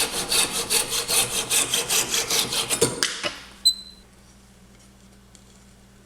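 Hand saw cutting through a small piece of wood in quick, even strokes, about five a second, until the cut is finished about 3 seconds in. A sharp click with a brief ringing follows just after.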